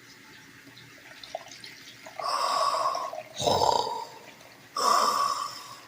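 Drip coffee maker brewing. After about two seconds it gurgles and hisses in three surges, about a second each, that alternate like heavy breathing in and out.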